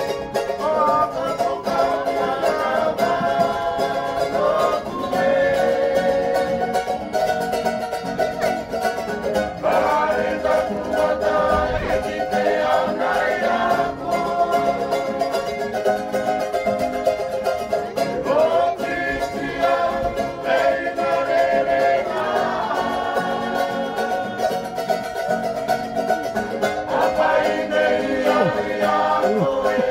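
Background music led by plucked strings in a bright banjo or ukulele style, with a voice singing in places.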